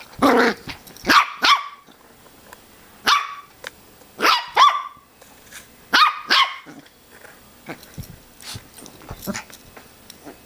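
A small puppy barking in play: a run of short, high-pitched yaps, several in quick pairs, that die down after about seven seconds.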